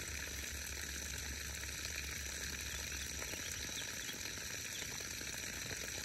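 Steady summer outdoor ambience: insects droning in an even, high hum over a soft hiss. A low rumble underneath stops about halfway through.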